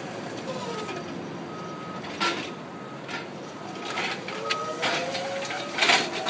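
Stand-up electric forklift manoeuvring: its reversing alarm gives a steady high beep at an even pace over the rising and falling whine of its drive motor. There are a few sharp clanks, the loudest near the end.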